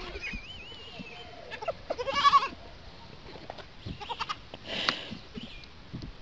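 An animal's calls: a thin wavering cry in the first second, then a louder pitched call about two seconds in, and a short rasping sound near five seconds.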